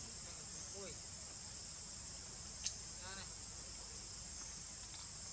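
Steady high-pitched drone of insects shrilling, with a couple of faint short calls about a second and three seconds in.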